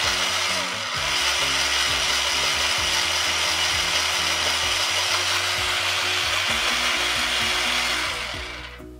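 Electric pencil sharpener grinding a pencil: a steady, loud whirring rasp of the motor-driven blade cutting wood and lead, lasting about eight seconds and stopping shortly before the end as the pencil is pulled out.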